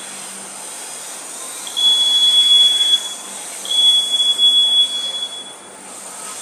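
Max-speed warning buzzer on a homemade Arduino self-balancing scooter, sounding a steady high tone twice, the first about a second long and the second about two seconds: the scooter has reached its set speed limit.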